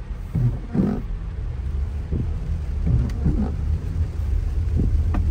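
Inside a car driving through heavy rain: a steady low rumble of the car on the wet road under a faint hiss of rain, broken by irregular soft thumps.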